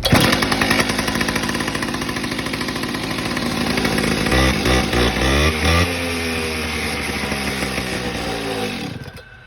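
Hilti two-stroke concrete cut-off saw catching on a cold start with the choke set and running fast. About four and a half seconds in, its pitch swings up and down as it revs, then it runs steadily and cuts off, winding down, near the end.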